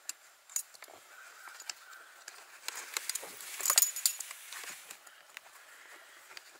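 Metal strap buckles and hooks clinking against a metal rucksack frame, with canvas webbing rustling, as rucksack shoulder straps are threaded around the frame's strap. Scattered light clinks, with a short run of louder ones a little past the middle.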